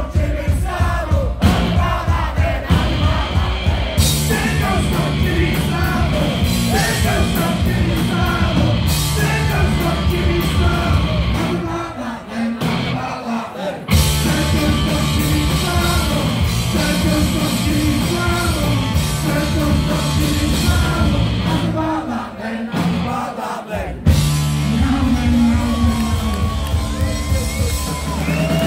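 Punk band playing live: electric guitars, bass and drums with shouted vocals. The band drops back twice for a couple of seconds and crashes back in each time.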